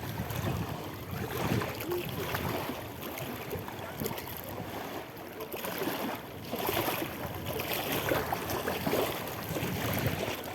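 Sea water washing and wind, a steady rushing noise that swells and eases every second or two.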